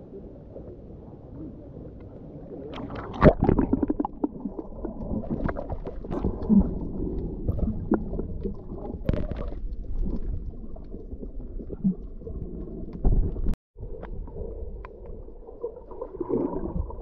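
Muffled water sloshing and gurgling heard underwater while snorkeling, with scattered sharp knocks and bubble pops, the loudest about three seconds in. The sound cuts out completely for a moment about two-thirds of the way through.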